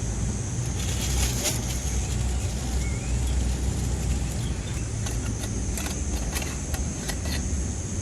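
Strong wind buffeting the microphone as a steady low rumble, with a thin, steady high-pitched tone running over it.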